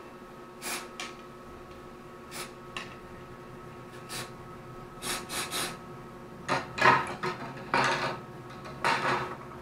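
Aerosol silicone spray can giving a string of short hissing puffs onto a fishing rod's line guides, about a dozen in all, irregularly spaced and longer and louder in the second half. Rubbing and handling of the rod mix in.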